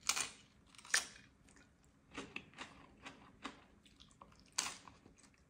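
Crisp corn tostada heaped with shrimp ceviche bitten into twice, about a second apart, then crunched between the teeth while chewing. Another loud bite comes near the end.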